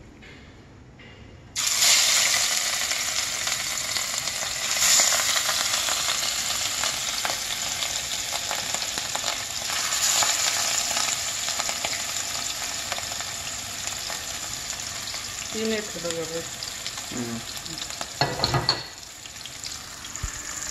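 Fish pieces frying in hot oil in a pan: the sizzle starts suddenly about a second and a half in as the first piece goes in, then carries on steadily, flaring up a few times as more pieces are laid in. A brief clatter comes near the end.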